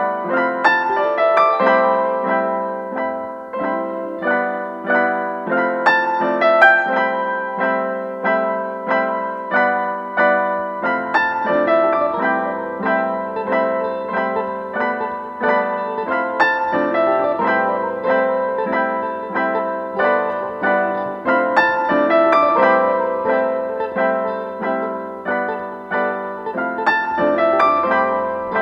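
Background music: a piano playing a steady pattern of repeated notes, with a low bass note added about eleven seconds in.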